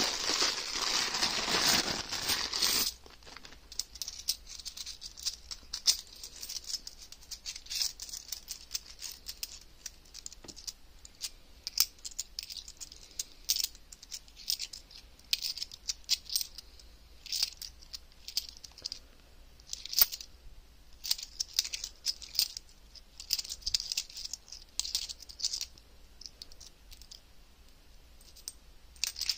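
Clear plastic coin bag crinkling and tearing in the hands for the first three seconds or so, then loose 50p coins clinking together in short, irregular clicks with bits of plastic rustle as they are sorted by hand.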